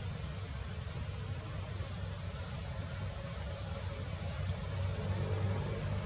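Insects chirping steadily in a high band, with a few brief higher chirps around the middle, over a low steady rumble.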